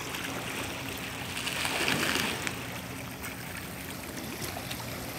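Small waves washing and lapping against a rocky seashore, swelling briefly about two seconds in.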